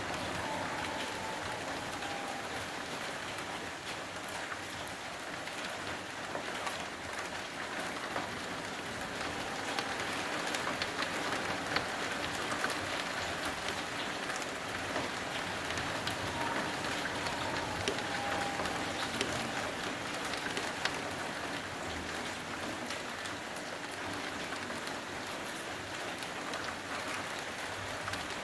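Steady heavy rain falling, an even hiss with scattered sharp ticks of drops striking a nearby surface.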